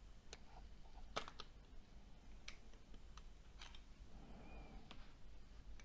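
Faint, scattered small clicks and taps of plastic and metal phone parts being handled during the teardown of a Nokia C6-00, about seven sharp clicks with a brief faint squeak near the end.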